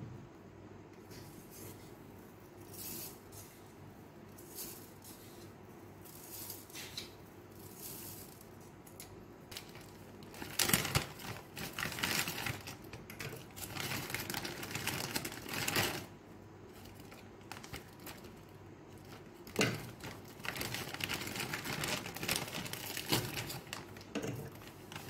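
Plastic zip-lock bag crinkling as a hand rummages inside it, in two spells of several seconds each, with a few light knocks of fruit pieces dropped into a plastic blender jug.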